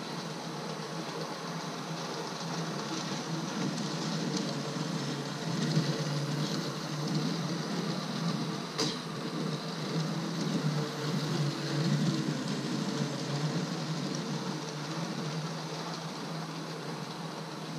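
Lego monorail train's electric motor running along the track with a steady whir, growing louder for a while in the middle and then easing off again, with one sharp click about nine seconds in.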